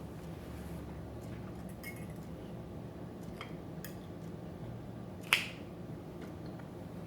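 Quiet eating sounds: a few faint clicks and one sharp click about five seconds in, over a steady low hum.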